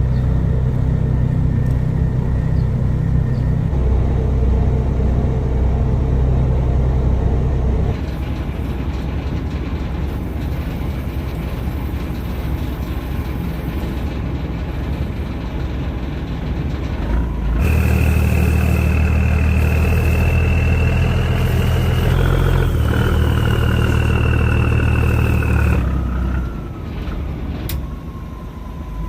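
Boat engine running steadily with a low throb. About seventeen seconds in it gets louder and a high whine joins it, rising slightly and then falling. Near the end it drops back quieter.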